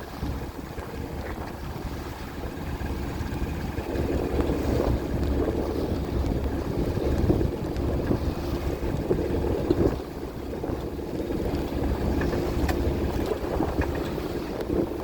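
Strong wind gusting, buffeting the microphone with a low rumble that swells and eases.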